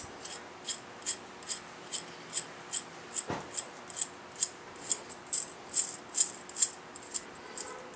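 Light metallic clicking at an even pace of about two or three clicks a second, from hand-tool work on the coil-bracket bolts as they are run in with stacked washers, with one duller knock about three seconds in.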